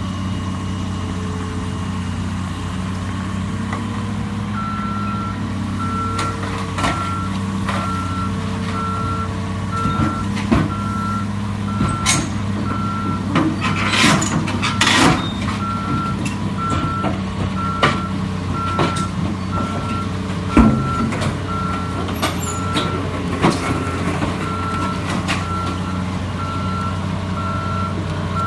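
Caterpillar hydraulic excavator's diesel engine running steadily as the machine tracks off the back of a lowboy trailer. From about four seconds in, a backup alarm beeps in an even rhythm. Scattered metallic clanks come from the steel tracks on the trailer, the sharpest about halfway through and again near twenty seconds.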